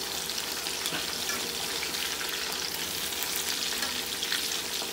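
Small slit brinjals (eggplants) deep-frying in hot oil: a steady, dense sizzle and crackle as they cook until soft, with a metal spoon turning them in the pan.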